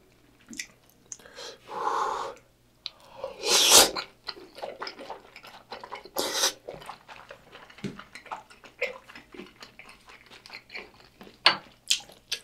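A person slurping thick udon noodles in noisy sucking bursts, the loudest about four seconds in and another a little after six seconds, then chewing with many small wet clicks.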